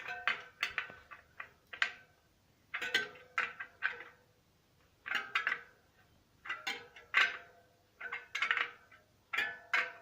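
Spoke key tightening the spoke nipples on a bicycle's front wheel a quarter turn at a time: short clusters of metallic clicks with brief ringing pings from the tensioned spokes, recurring every second or so.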